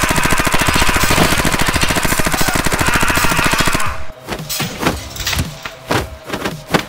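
Rapid automatic rifle fire, a long unbroken burst of very fast shots that stops abruptly about four seconds in. A few separate sharp hits follow near the end.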